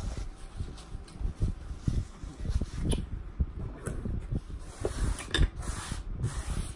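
Close-miked chewing of food, with a paper napkin rustling and a fork clicking against the plate twice, at about three and five and a half seconds.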